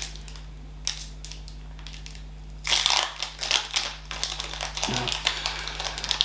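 Foil booster pack of Pokémon cards being crinkled and torn open. Scattered rustles and clicks, with the loudest tearing crinkle about three seconds in.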